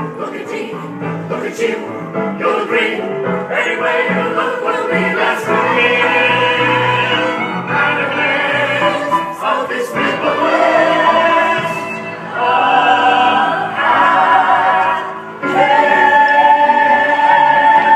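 Musical-theatre number: voices singing in chorus over instrumental accompaniment, with long wavering held notes, swelling into a loud sustained chord about three seconds before the end.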